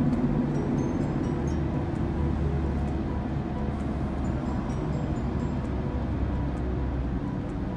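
Steady low engine and tyre rumble of a vehicle driving along a highway, heard from inside the cabin.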